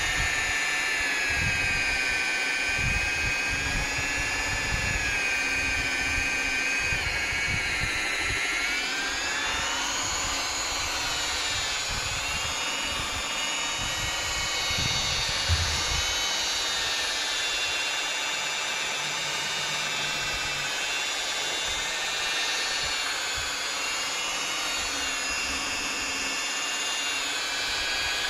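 Corded electric rotary polisher running with a steady whine while buffing a hazy plastic headlight lens after wet-and-dry sanding; its pitch dips about eight seconds in, then climbs back up.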